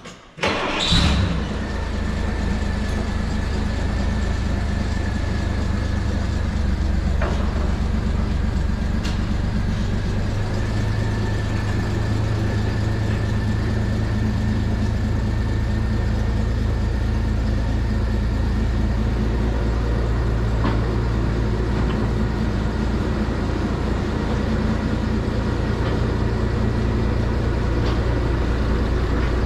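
Forklift engine starting about a second in, then running steadily with a low drone and a faint steady whine as it pushes a loaded lumber trolley along its rails.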